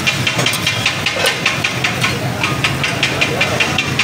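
Metal ladle clanking and scraping against a metal wok in quick repeated strokes, about five a second, over a steady hiss of frying.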